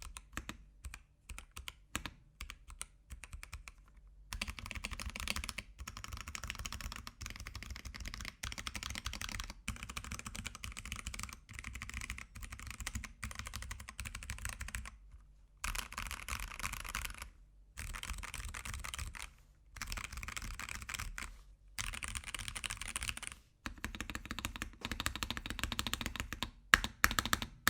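Mechanical keyboard fitted with Akko Jelly Blue switches being typed on: a few scattered keystrokes, then fast continuous runs of key clicks broken by short pauses, and a few single louder key presses near the end.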